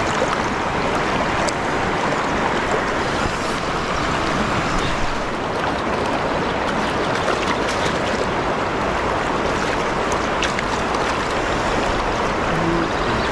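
River current rushing steadily around a wader and a landing net held in the water, with a few small splashes.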